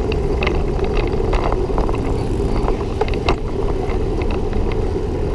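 Wind buffeting the microphone of a camera mounted on a moving bicycle, a steady low rumble, with irregular light clicks and rattles from the bike as it rolls over the path.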